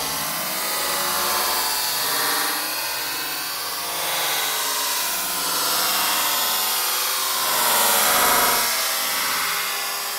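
Nail-punctured lithium-ion cell venting in a vise, a steady hiss of escaping gas and smoke that swells and eases a few times. The cell is in thermal runaway: very hot from being shorted out through the nail.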